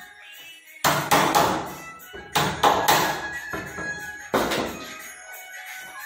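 Wooden sliding wardrobe door knocking against its frame: seven loud thunks, three in quick succession about a second in, three more about a second later, and a last one past the middle, over background music.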